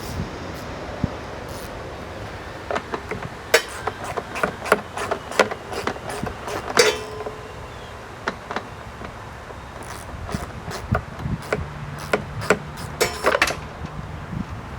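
Irregular metallic clicks and clanks of hand tools and bolts working on a lawn mower's housing, one clank near the middle ringing briefly. The bolts are being taken off and dropped.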